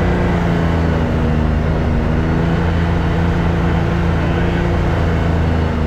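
Can-Am Maverick X3 side-by-side's engine running at a steady speed while driving, its pitch holding fairly level.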